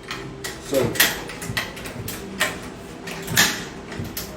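Kitchen clatter of cookware: a handful of separate knocks and clicks, roughly one a second, as a pot on a gas stove is handled.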